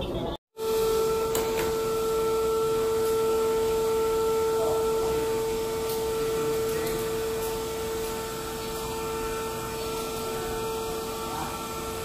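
Vacuum cleaner motor running steadily, a constant whine over a rushing hiss, coming in about half a second in; it is being used to vacuum air-conditioner filters.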